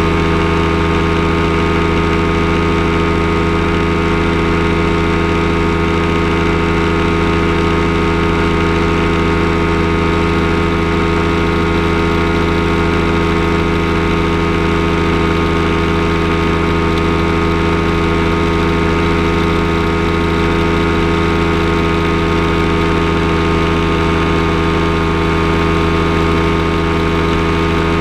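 Kolb Firestar II ultralight's pusher engine running steadily at cruise power in flight, heard from the cockpit, with an unchanging pitch.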